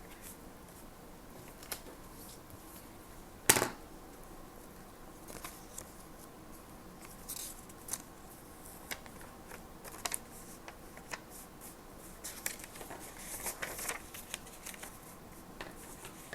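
Stationery being handled on a desk: scattered light clicks and taps, with one louder knock about three and a half seconds in and a quicker run of scratchy clicks near the end.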